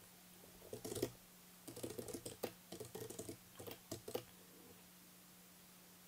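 Faint computer keyboard typing: a few keystrokes about a second in, then a quick flurry of key clicks for about two and a half seconds that stops a little past four seconds in.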